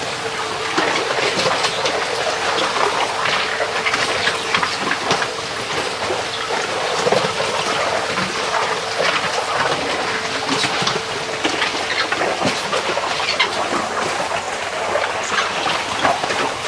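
An arrastra ore mill running: its sweep arm drags heavy stones on chains around the stone-paved pit through wet ore, with continuous scraping and clattering over a steady hum.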